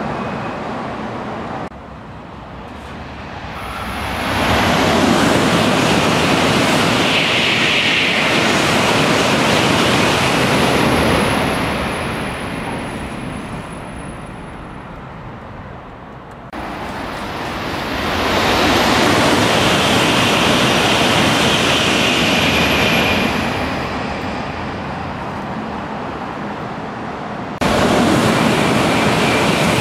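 Shinkansen high-speed trains running through a station without stopping at about 300 km/h: a loud rushing roar of air and wheels on rail swells over a few seconds and dies away, twice, and breaks off abruptly between passes. Near the end the roar starts again suddenly at full loudness as the next train arrives.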